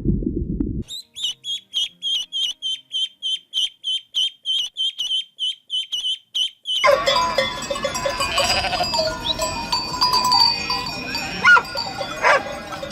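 A bird peeping rapidly and steadily, about four high peeps a second, then from about seven seconds in a dense chorus of many birds calling over one another.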